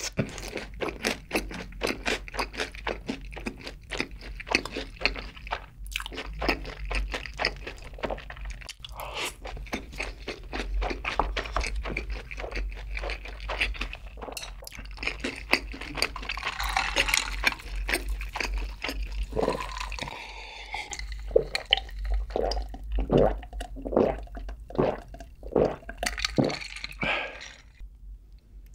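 Close-miked chewing of sweet-and-spicy sauced Korean fried chicken (yangnyeom chicken), with crunching of the fried coating and wet mouth sounds as many quick small clicks.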